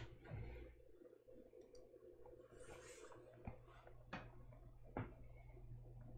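Near silence: a steady low electrical hum of room tone, with three faint, sharp clicks or taps in the second half, about a second apart.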